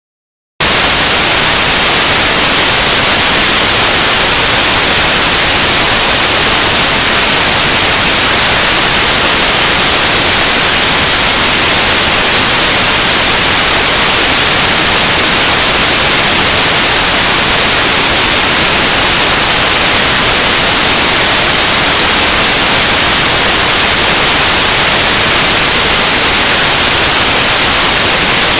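Harsh noise music: a loud, unbroken wall of static-like hiss, strongest in the high range. It starts abruptly out of silence about half a second in and holds steady throughout.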